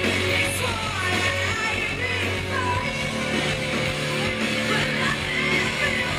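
Rock band playing live, with a singer's voice over the band.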